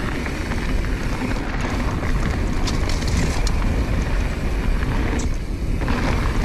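Wind rushing over the microphone and mountain bike tyres rolling over a dirt flow trail at speed, with scattered clicks and rattles from the bike.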